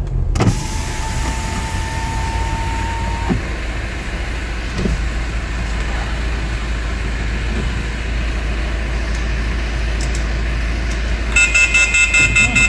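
Steady low rumble with a thin steady tone over the first three seconds. Near the end comes a rapid run of high electronic beeps, about six a second for about two seconds, an odd beeping 'hello'.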